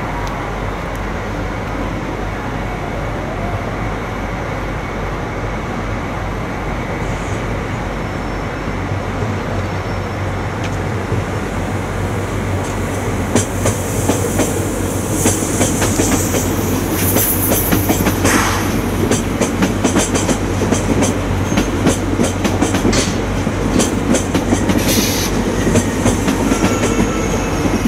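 Regional passenger trains rolling slowly through the station tracks. A steady rumble gets louder about halfway in, as wheels start clacking over rail joints and points, with brief high-pitched wheel squeals in the second half.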